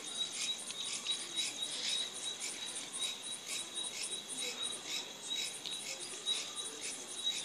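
Crickets chirping in a night chorus: a continuous high trill with regular chirps repeating over it.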